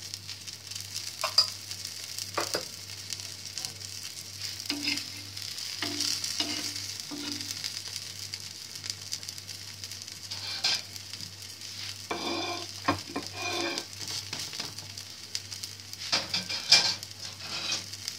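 Semolina patty shallow-frying in oil on an iron tawa: a steady sizzle, with a few brief knocks now and then.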